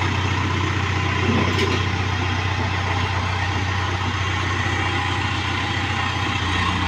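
Diesel engine of a JCB excavator running steadily at an even, low hum, with no change in engine speed.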